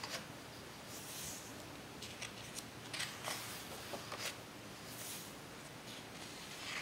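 Pages of a large hardcover photo book being turned and smoothed by hand: soft paper swishes and rustles, several of them spread through, with a few light taps.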